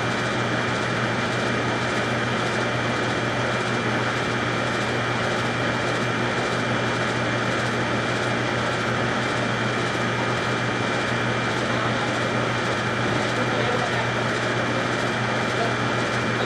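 Steady machine hum with a low drone and two faint high whines, unchanging throughout.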